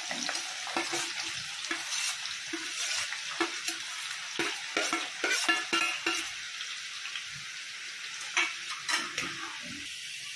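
Sliced onions deep-frying in hot oil in a kadhai, sizzling steadily. A metal slotted spoon stirring them clinks and scrapes against the pan, often through the first six seconds and only a few times after.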